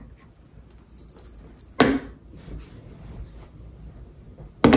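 Props being handled: a brief jingling rustle about a second in, then a sharp knock near two seconds and another at the end.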